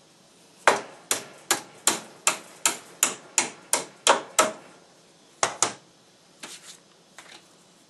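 Bench vise being adjusted: a steady run of about ten sharp knocks, roughly two and a half a second, then two more and a few fainter ones near the end.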